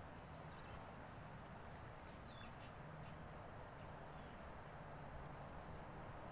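Small terrier licking and lapping chicken broth from a bowl, a few faint wet clicks and squeaks over a quiet background.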